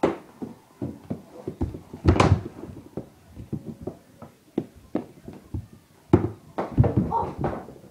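Irregular knocks and thuds of mini-stick hockey on a hardwood floor: stick, ball and knees striking the floor close by, with heavier bumps about two seconds in and again near the end.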